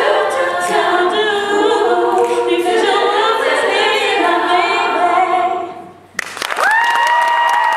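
All-female a cappella group singing, a lead voice over the backing voices. The song ends about six seconds in, and applause breaks out with a few long rising whoops.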